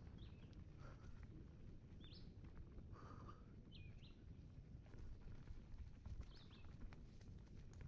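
Faint low rumble of mountain bike tyres rolling over a dirt forest trail, with scattered knocks and rattles from the bike. A bird chirps four or five times in short, quick calls over it.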